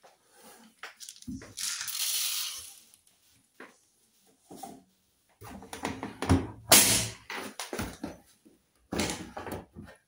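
Handling noise, rustling and knocks around a front-loading washing machine. A hissy rustle comes a second or so in, then a run of knocks with one sharp, loud knock about seven seconds in, and a last short rustle near the end.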